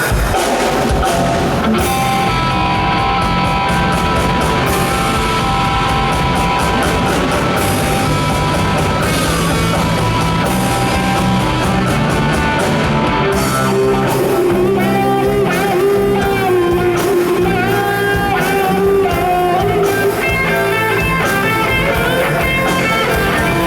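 Rock band playing a song with electric guitar and drum kit. About 13 seconds in, a lead melody line that wavers in pitch comes in over the band.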